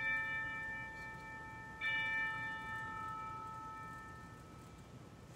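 Altar bell struck twice, once just at the start and again about two seconds in, each stroke ringing with several clear tones that fade over a couple of seconds: the consecration bell marking the elevation of the chalice at Mass.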